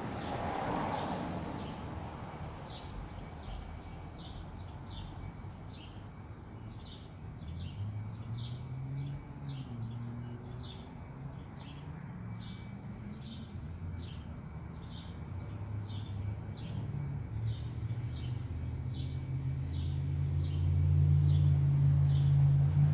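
A woodpecker's short, high call notes repeated steadily, about one and a half a second. A car engine runs underneath and grows louder near the end.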